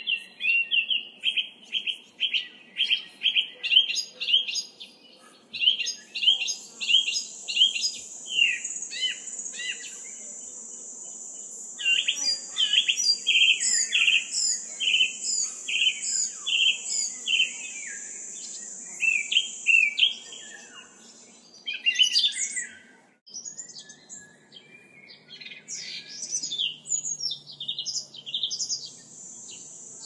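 Forest birds chirping in quick, repeated phrases, several overlapping, with a steady high insect buzz running through the middle stretch. About 23 seconds in the sound breaks off suddenly and a different set of bird calls takes over.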